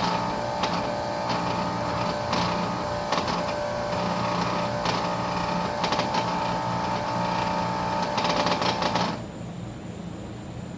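Trane XR air conditioner running with a buzzing, ticking rattle from a solenoid vibrating inside the unit next to the control board. The rattle and buzz cut off sharply about nine seconds in, leaving a fainter background.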